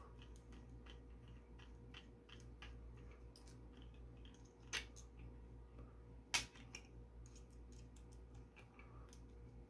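Faint clicking and ticking of a small screwdriver turning screws out of 3D-printed plastic leg parts, with two sharper clicks about five and six and a half seconds in.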